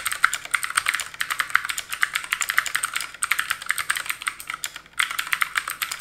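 Fast typing on a ZSA Moonlander split mechanical keyboard fitted with clicky Cherry MX Blue switches: a dense, pretty loud run of sharp key clicks, with brief pauses about three and five seconds in.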